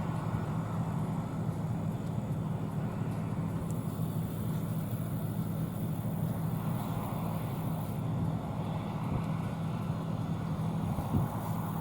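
John Deere combine running steadily while harvesting soybeans: an even, low engine drone with no changes in pace.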